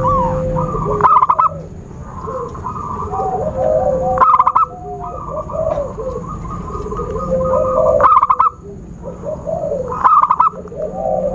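Several zebra doves (perkutut) singing over one another: a rapid rattling trill comes every three to four seconds, with softer cooing notes between, over a faint steady high whine. This is a lure recording of zebra dove calls, used to draw wild doves in.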